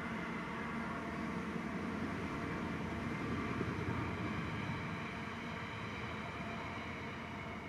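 Container train's flat wagons rolling past on the rails, a steady rumble of wheels on track that begins to die away as the last wagon goes by near the end.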